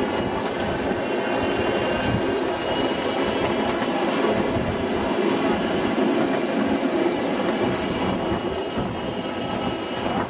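A 7.5-inch gauge ride-on miniature train running along its track, its wheels rolling and clattering steadily over the rails.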